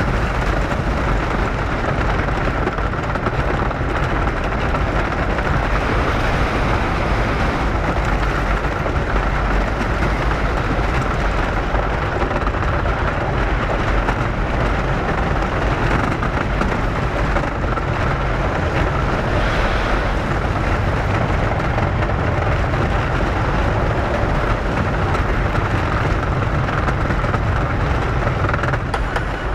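Wooden roller coaster train (The Legend's PTC train on its CCI wooden track) running at speed, heard from on board: a loud, steady rumble with no let-up. It is a notoriously rough-riding track that still pounds its riders.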